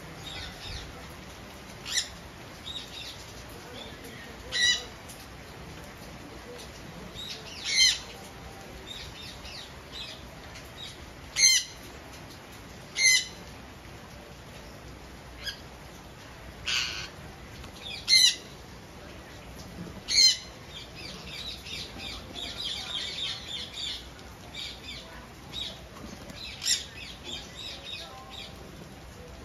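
Indian ringneck parakeets giving about ten short, loud, harsh squawks at irregular intervals, with a stretch of softer rapid chattering about two-thirds of the way through.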